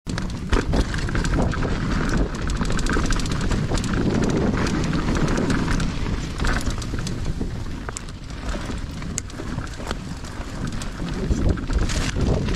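Mountain bike ridden along a rough dirt trail: wind buffeting the microphone, with the bike rattling and clicking over the bumps.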